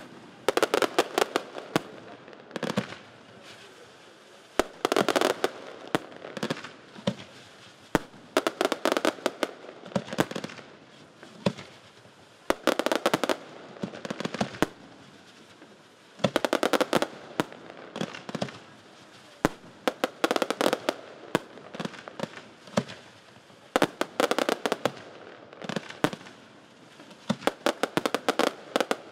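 Aerial firework shells bursting in dense volleys of bangs and crackling, a cluster about every three to four seconds, with single sharp reports in between.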